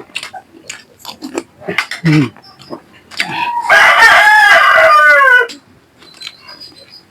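A rooster crows once, a loud call about two seconds long starting about halfway through and dropping in pitch at its end. Before it, short clicks and clatter of eating by hand.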